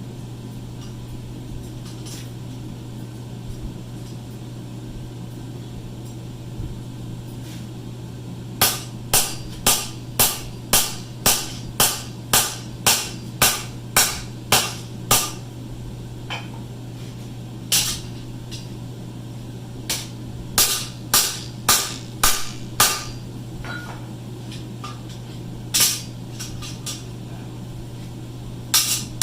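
Blacksmith's hammer striking a steel bar on the anvil, pre-dimpling it for a Claydon clamp: after a quiet stretch, a run of about fourteen sharp blows at roughly two a second, then scattered groups of strikes. A steady low hum runs underneath throughout.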